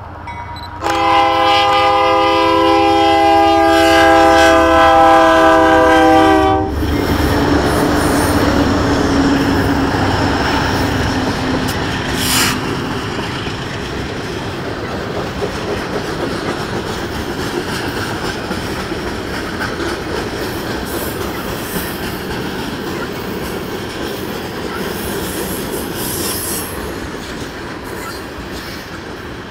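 Diesel freight locomotives sound a long blast on a multi-note air horn, from about a second in until about seven seconds in, at a grade crossing. The locomotives then pass close by with a low engine drone, followed by a string of tank cars rolling past with steady wheel rumble and clicks over the rail joints, and one sharp clank about twelve seconds in.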